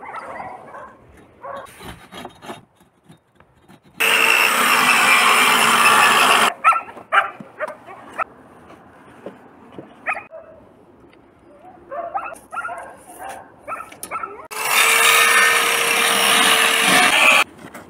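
Corded electric saw cutting through wooden boards twice, each cut lasting about two and a half seconds and starting and stopping abruptly. Knocks and clatter of wood being handled come between the cuts.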